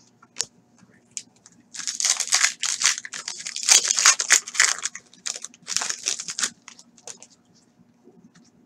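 Plastic wrapper of a trading-card pack torn open and crinkled by hand: a few light ticks, then several seconds of dense crackling that stops well before the end.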